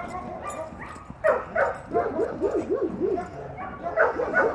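German Shepherd dogs vocalising in rough play: a few sharp yips, then a run of quick rising-and-falling whines, about four a second, starting about two seconds in.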